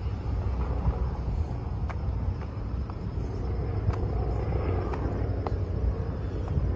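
Outdoor ambience: a steady low rumble, with a few faint clicks now and then.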